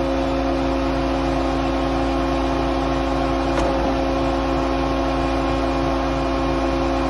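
Peddinghaus Angle Master CNC angle line standing powered up without cutting: its hydraulic power unit gives a steady hum with several fixed tones over a low rumble. A faint click about three and a half seconds in.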